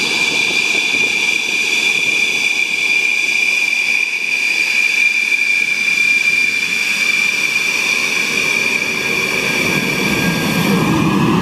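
Dassault Rafale's twin M88 turbofans whining steadily at taxi power, one strong high whine with fainter overtones over a rushing exhaust noise. The exhaust rumble swells near the end as the jet passes close.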